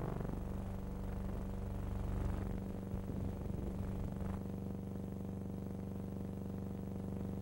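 Biplane engines running as the aircraft fly low overhead, a rough drone with a fast pulse on an old, worn soundtrack. About four seconds in, the sound changes abruptly to a steady, even hum.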